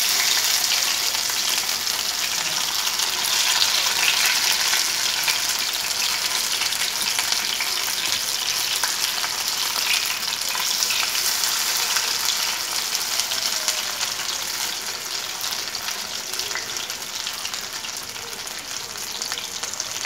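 Masala-coated fish steaks shallow-frying in hot sesame oil in a nonstick pan, their second side cooking just after being turned: a steady, dense sizzle and crackle of spitting oil. The sizzle eases a little in the second half.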